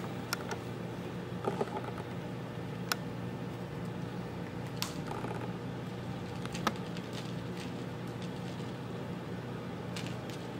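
Hands working cord into a girth hitch with an extra turn around a line main: scattered faint clicks and rustles of cord handling, the sharpest click right at the start, over a steady low hum.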